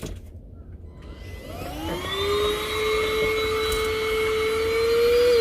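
Handheld mini vacuum cleaner switched on about a second and a half in: its motor whines up to speed, then runs steadily with a high whine, rising a little in pitch near the end.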